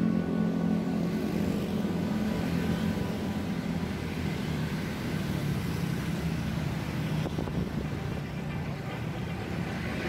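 Street traffic: cars driving past with a steady wash of engine and tyre noise, one engine's hum fading away over the first couple of seconds.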